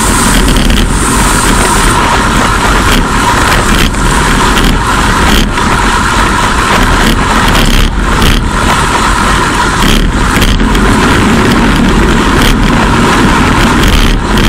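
Loud, steady wind rush over a Cycliq bicycle camera's microphone while riding at about 55 to 60 km/h, mixed with road noise.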